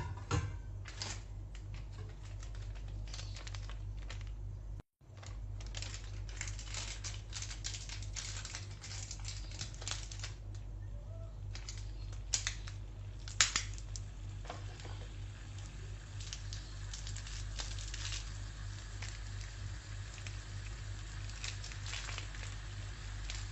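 Handling noises from food preparation: crinkling, rustling and scattered sharp clicks, with a few louder knocks about 12 to 14 seconds in, over a steady low electrical hum.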